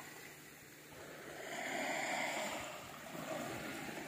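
Small sea waves lapping and washing up onto a sandy beach. One wash swells about a second in and recedes, and a smaller one follows near the end.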